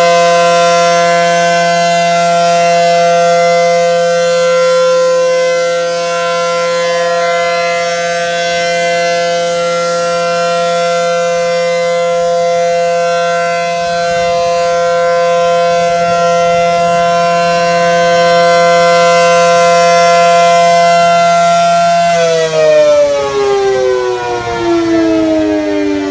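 Outdoor tornado warning siren sounding a test: a loud, steady wail that swells and fades slightly, then winds down near the end, falling in pitch.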